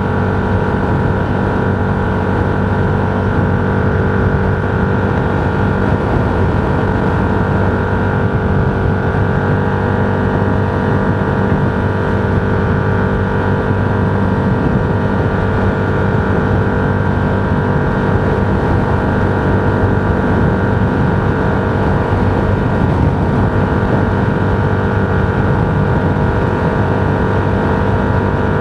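Steady drone of a road vehicle travelling at constant speed: engine and road noise with an unchanging hum.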